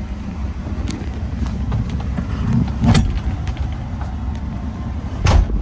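Hino diesel engine of a Kobelco SK210LC-10 excavator running steadily, heard from inside the cab, with two sharp knocks about three seconds in and near the end.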